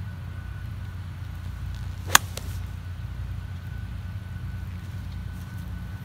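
An 8-iron striking a golf ball on a fairway approach shot: one sharp, short crack about two seconds in, over a steady low rumble.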